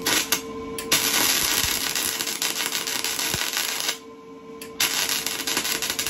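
Wire-feed arc of a Lincoln 210 MP welder crackling and sizzling as a bead is laid, in two runs of about three seconds with a short break between them, after a couple of brief arc strikes at the start. The repaired machine is feeding wire and welding again.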